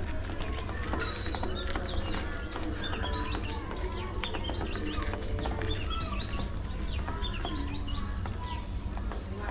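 Budgerigars chattering: many short, quickly rising and falling chirps and warbles overlapping without a break, over a steady low rumble.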